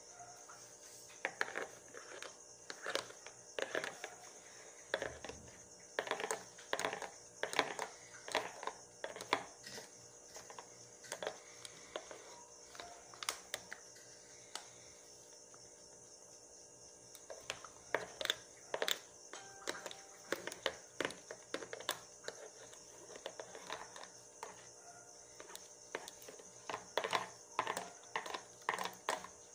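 A metal fork tapping and scraping against a glass blender jar and a plastic ice-cube tray, irregular clinks and knocks, as a thick blended fish-food mixture is scraped out and portioned. The clinks come in clusters, with a quieter stretch in the middle.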